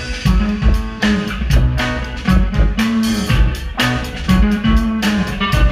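A live band playing: drum kit keeping a steady beat under a moving bass line, with electric guitar and keyboards.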